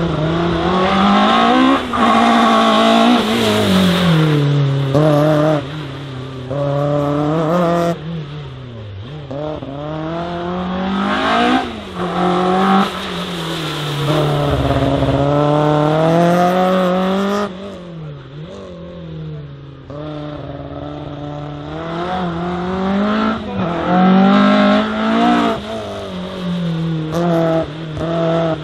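First-generation VW Golf race car's engine revving hard and dropping back over and over, its pitch climbing with each burst of throttle and falling away as the driver lifts and brakes.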